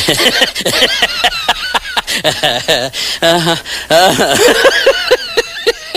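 A person laughing in quick, high-pitched bursts, with a run of short repeated 'ha-ha' pulses in the second half.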